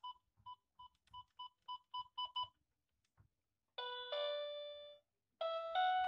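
BIGFUN BF-430A1 toy electronic keyboard: a run of about nine short, identical beeps, coming faster and faster, as its panel buttons are pressed. Then, about four seconds in, notes played on its keys through the built-in speakers, stepping upward near the end.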